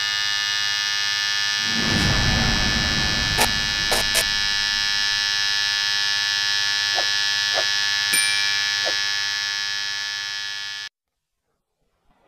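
A steady electronic buzzing drone, part of the edited intro sound design, with a rumbling swell about two seconds in and a few sharp clicks and blips along the way. It cuts off abruptly near the end, leaving a moment of silence.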